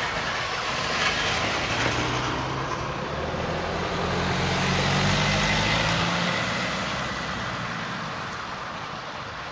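A motor vehicle's engine hum builds, is loudest about five seconds in, then fades, over a steady background rumble that slowly dies away.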